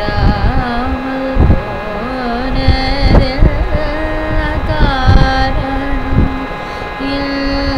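A woman singing a Carnatic improvisation in raga Behag: one voice holding notes and sliding ornamentally between them, over a steady drone.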